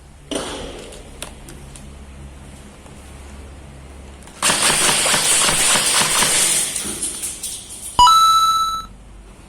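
A couple of seconds of dense rapid clicking, typical of an airsoft gun firing on full-auto. Near the end comes a sharp click followed by a brief ringing tone.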